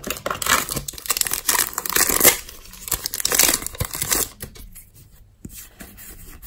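A foil Cardfight!! Vanguard booster pack being torn open, its wrapper crinkling for about four seconds, then quieter rustling as the cards are handled.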